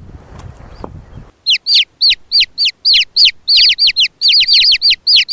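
A bird calling in a fast run of loud, repeated short notes, each falling in pitch, starting about a second in after a low noisy rumble.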